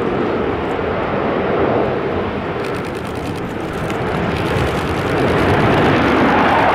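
Jet engine noise from a formation of six Chengdu J-10 fighters flying overhead: a steady rush of engine noise that grows louder over the last couple of seconds.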